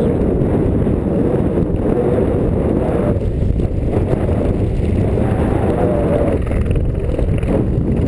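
Wind rumbling on a body-mounted camera's microphone during a ski run, a steady, loud low rush.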